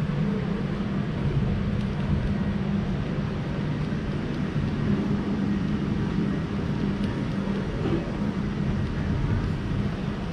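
Steady low engine rumble of a motor vehicle.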